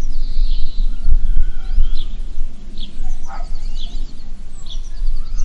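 Several birds chirping and calling, with short sharp notes, quick trills and one falling call, over a loud low rumble.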